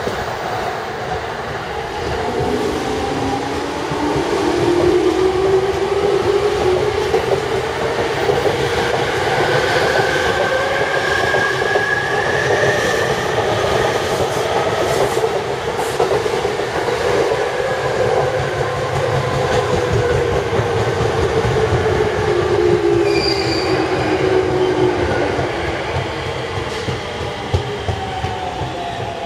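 JR Yamanote Line electric commuter train moving off along curved track, with steady wheel-on-rail noise. Its motor whine rises in pitch for the first few seconds as the train gathers speed, holds, then falls away near the end.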